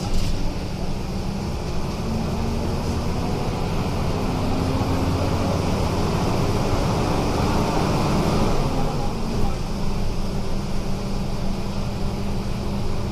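The 270 hp MWM Euro 5 diesel engine of a Volvo B270F bus chassis running, its pitch rising over a few seconds from about four seconds in, then dropping back about nine seconds in.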